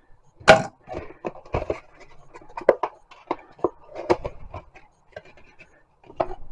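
Cardboard model-kit box being handled and its lid opened: a run of irregular knocks, taps and short scrapes, the sharpest about half a second in.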